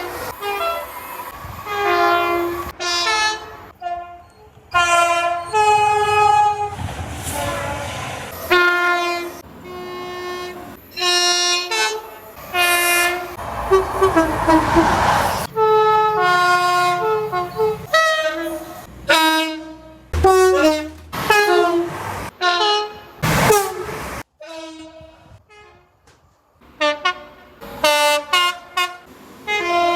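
A rapid string of train horn blasts cut abruptly one after another, some short toots and some held longer, many sounding two notes together. Two brief stretches of passing-train rumble come in between.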